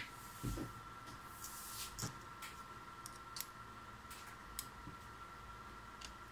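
Spring test clips of an internal-resistance meter being snapped onto the screw terminals of a prismatic lithium iron phosphate cell: a scattered series of light clicks and scrapes. A faint steady high whine runs underneath.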